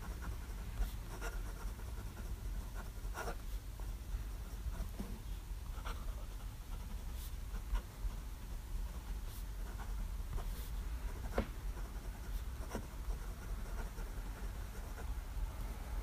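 Pilot Custom 823 fountain pen's medium nib scratching across smooth 90 gsm Rhodia paper in handwriting strokes, with scattered light ticks as the nib touches down and lifts between letters.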